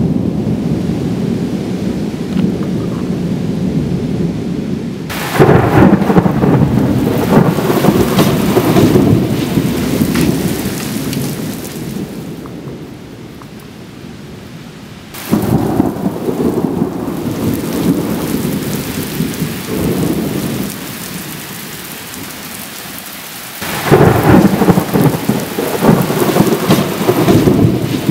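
Thunder rolling three times, each peal breaking suddenly and rumbling deep for several seconds before dying away, over steady rain.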